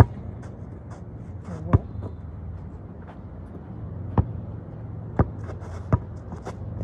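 A basketball bouncing on the ground: five separate sharp thuds at uneven intervals, the first the loudest, over a low steady hum in the background.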